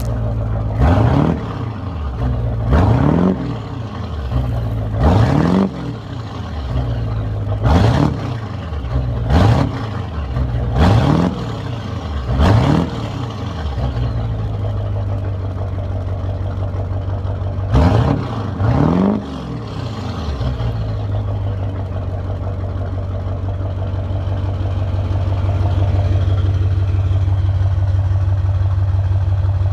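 2001 Duramax 6.6-litre V8 turbodiesel running through a straight bed-mounted exhaust stack shortly after a cold start, with diesel clatter. It is blipped in short revs about every couple of seconds for the first dozen seconds, settles to idle, is revved twice more about eighteen seconds in, then idles steadily.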